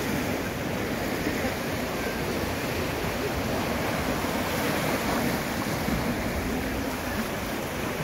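Sea waves washing steadily against a rocky shore: a continuous rushing surf.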